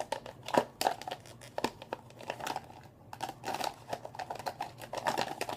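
Hands rummaging through small plastic containers: irregular clicks, rattles and crinkling as they are shuffled and picked up.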